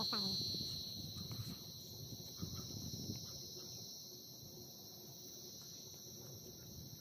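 Steady high-pitched chorus of crickets at night, a little louder in the first second, with a short falling animal call right at the start.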